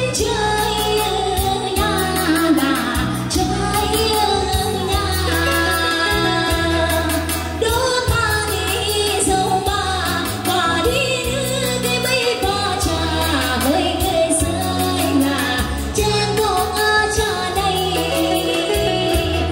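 A song: a voice singing a melody over instrumental accompaniment with a bass line.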